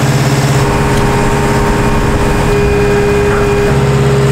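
JCB 270T compact track loader's diesel engine running steadily as the machine carries a load on its forks. The engine note shifts just after the start and again near the end.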